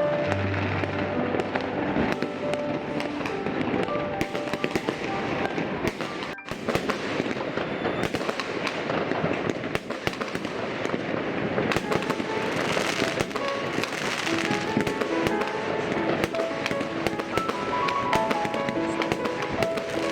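Fireworks going off in a dense, continuous barrage of bangs and crackles, with baroque orchestral music playing underneath.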